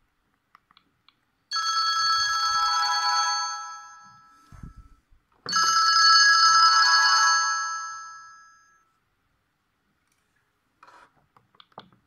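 Sony Ericsson K530i's built-in speaker playing a ringtone preview: two loud, bright chime-like chords, each held for about two seconds and then fading out, the second starting about four seconds after the first. Faint keypad clicks near the end.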